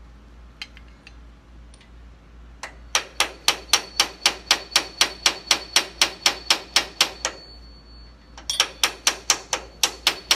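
Hammer tapping metal on metal at a fast, even rate of about five strikes a second, with a thin metallic ring, driving the gland of a hydraulic lift cylinder into its barrel. A few light clicks come first, and the tapping breaks off for about a second near the middle before it resumes.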